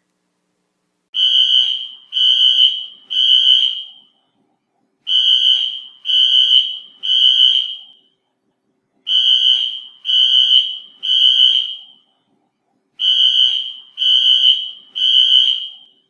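Fire alarm sounding a loud, high-pitched beep in groups of three, each group about four seconds apart, four groups in all. This is the temporal-three pattern that signals a building evacuation.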